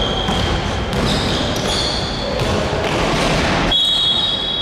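Basketball game in a gym: sneakers squeaking on the hardwood court and a ball bouncing over echoing hall noise, with an abrupt change to a different stretch of play about three and a half seconds in.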